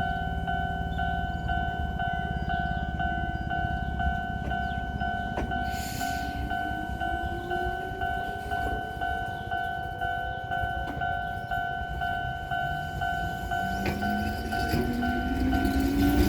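Japanese level-crossing warning bell ringing in a fast, steady, repeating two-tone clang. Under it an electric train's motor whine rises in pitch, and a second rising whine joins near the end as the train grows louder.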